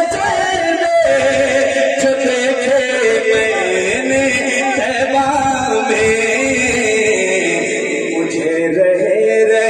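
A naat sung by a male voice in long, drawn-out melodic lines, with several voices layered together as a vocal backing.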